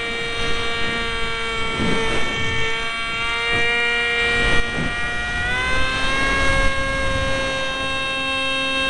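Motor of a foam RC F-22 model whining steadily in flight, heard from a camera on the airframe, with wind buffeting on the microphone. The pitch steps up a little about five and a half seconds in.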